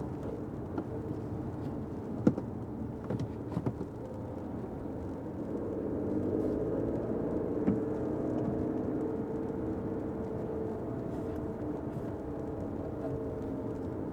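Fiat 500X driving, heard from inside the cabin: a steady low road-and-engine rumble with a humming drone. A few sharp clicks or knocks cut in, the loudest about two seconds in.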